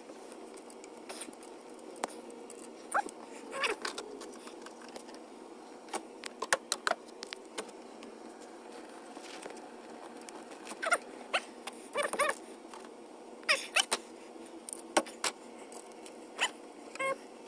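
Irregular short squeaks and clicks of rubber coolant hoses being pushed and twisted by hand onto the plastic fittings of a three-way coolant bypass valve, over a faint steady hum.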